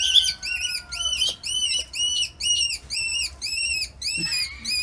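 High-pitched whistling calls repeated about twice a second, each note rising, holding briefly and falling.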